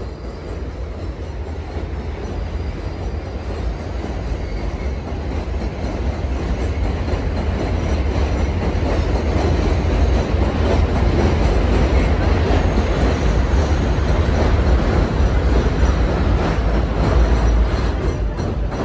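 Elevated subway train running on the steel viaduct overhead, a loud rumble that builds steadily, stays at its loudest through the later part and eases off near the end.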